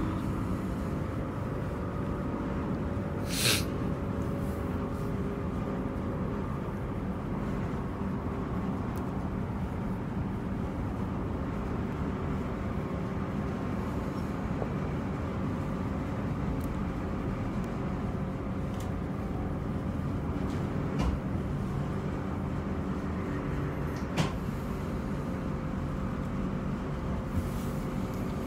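Interior of a Transperth Bombardier and Downer Rail B-series electric multiple unit carriage running at speed: a steady rumble of wheels on rail under a constant electric hum. A few sharp clicks or knocks come through, one a few seconds in and two more past the middle.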